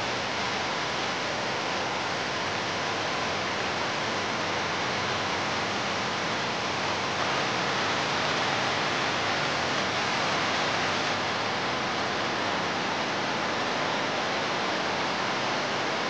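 Waterfall rushing: a steady, even wash of falling water with no change throughout.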